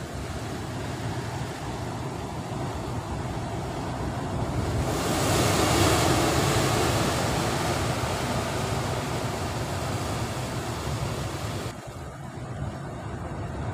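Sea surf breaking and washing over rocks below, growing louder about five seconds in as a bigger wave comes through, then easing off.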